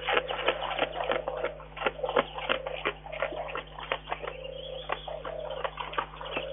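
Brown bear chewing corn kernels: irregular sharp crunching clicks, several a second, over a low wavering hum.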